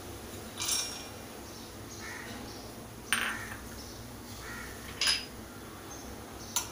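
Roasted pistachios tipped from a glass bowl into a stainless steel mixer-grinder jar, then glass bowls handled against the jar, giving four short clatters and clinks.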